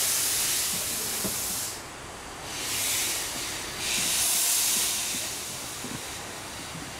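Steam hissing from a 15-inch (381 mm) gauge steam locomotive in three long bursts, the last one fading away about two-thirds of the way through.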